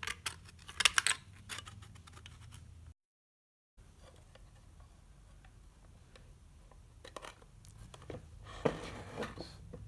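Thin embossed diamond-plate metal sheet clicking and scraping as pieces are handled and set down on a workbench, with sharp clicks in the first couple of seconds and a short crinkly scrape near the end.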